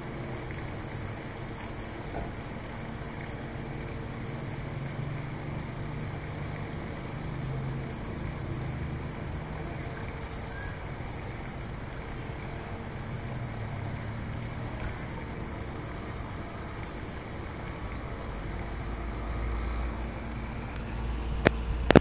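Road traffic: vehicle engines running with a steady hum, a deeper rumble building near the end, and two sharp knocks just before it ends.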